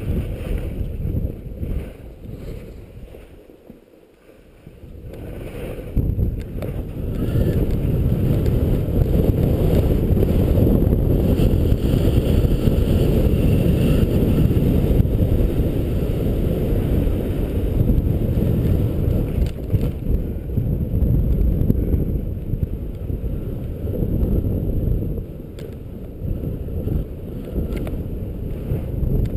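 Wind rushing over a point-of-view camera's microphone during a downhill ski run, a low steady rumble mixed with the skis sliding on snow. It drops quieter for a couple of seconds about four seconds in, then comes back loud for the rest.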